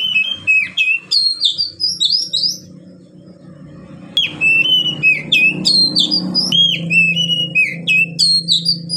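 Caged male oriental magpie-robin (kacer) singing loud runs of quick, sweeping whistled notes. One run ends about two and a half seconds in, and after a pause of about a second and a half a second long run carries on.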